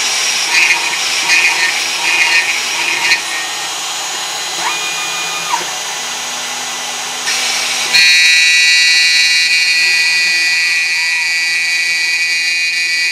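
CNC milling machine cutting a plastic part, the cutter biting in rhythmic bursts. About two-thirds of the way through, a louder steady high whine sets in abruptly.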